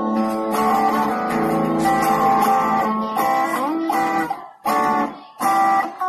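A double-neck electric guitar on a wooden guitar bike, played with several notes ringing together. There are sliding notes about three seconds in, and the playing breaks off twice for a moment near the end before picking up again.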